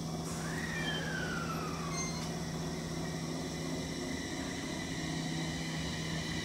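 The traction inverter and motors of a JR East E721 series 1000 subseries electric train whining as it moves slowly along the platform: a low steady hum with several steady high tones, and one tone sliding down in pitch for about two seconds starting about half a second in.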